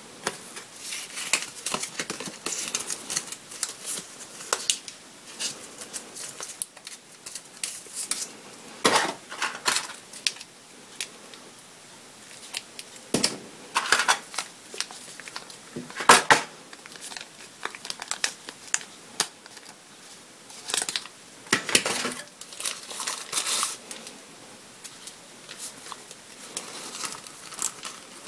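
Packaging being handled during an unboxing: irregular crinkling and rustling of paper leaflets and plastic wrap, with light knocks of a card box tray and accessories set down, and plastic film being pulled off a charger plug.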